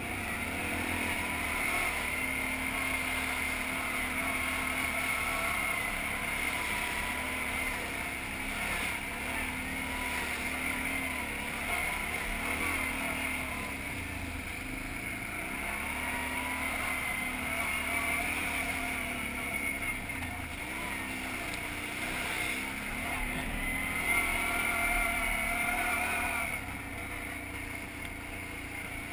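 ATV engine running under load as the quad is ridden through sand and mud, its note rising and falling with the throttle and climbing briefly a little before the end.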